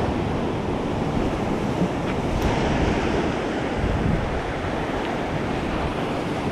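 Surf breaking and washing over the rocks at the foot of a breakwater, a steady rush with wind rumbling on the microphone.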